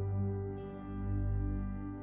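Soft, slow background music with sustained tones, new-age in style; a new note comes in about half a second in.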